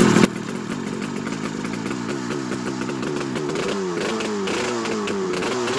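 Buran snowmobile's RMZ-640 two-stroke twin engine running on a stand, dropping from high revs a moment in to an uneven idle whose speed keeps rising and falling. It is running rough after being flooded with fuel.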